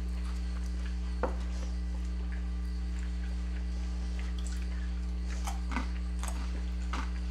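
Steady low electrical hum, with one sharp click a little over a second in and a few soft crackles near the end from powdered corn chips being handled and crunched.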